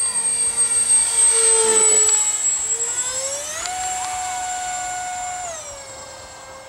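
Twin 50 mm ten-blade electric ducted fans on a radio-controlled model Boeing 737 give a high whine, loudest in the first two seconds as the model passes close. About three and a half seconds in, they spool up to a higher pitch for a climb, hold there, and ease back down near the end.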